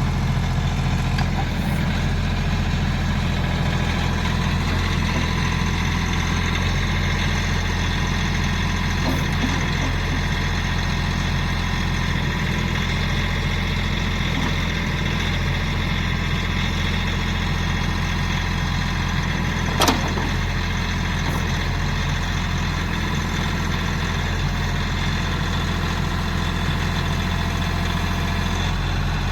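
Kioti tractor-backhoe's diesel engine running steadily at idle, with one sharp click about two-thirds of the way through.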